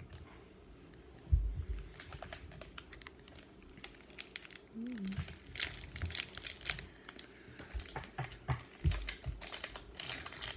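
Trading card pack being opened and handled: the wrapper crinkling and tearing, with quick clicks and rustles of the cards, and a single thump about a second in.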